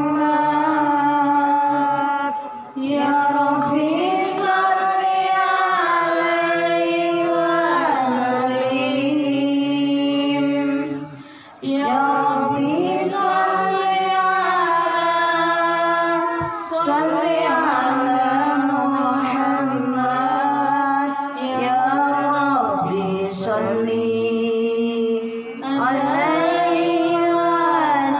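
A woman singing Islamic sholawat unaccompanied into a handheld microphone, in long drawn-out notes with melismatic turns. There are short breath pauses about three and eleven seconds in.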